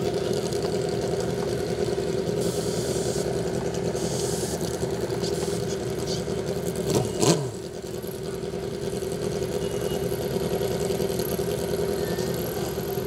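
Drag-racing motorcycle engines idling steadily at the starting line. About seven seconds in there is one short rev blip that rises and falls in pitch.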